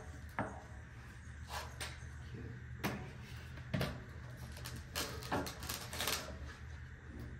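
A scattered series of short clunks, knocks and scrapes as metal parts and tools are handled against a pipe and set down on concrete, over a steady low hum.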